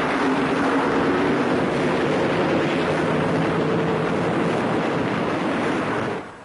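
Loud, steady rushing rumble of a moving train heard from inside a wooden freight car. It cuts off suddenly about six seconds in.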